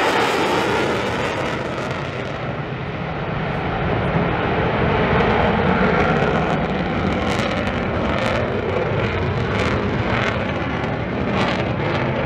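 F-35 fighter jet flying a low pass, its engine giving a loud continuous jet rumble that eases about two seconds in, builds again, and crackles in the second half.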